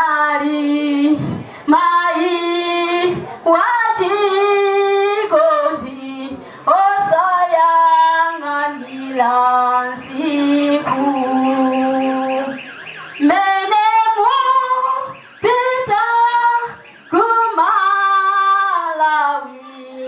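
A woman singing solo with no accompaniment, in phrases of long held notes that step and slide in pitch, one note near the middle held with a wavering vibrato.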